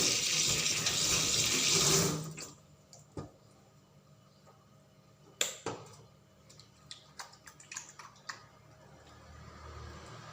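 Tap water running into a sink for hand washing, shutting off after about two seconds. Then a few light clicks and knocks, one sharper knock about five seconds in.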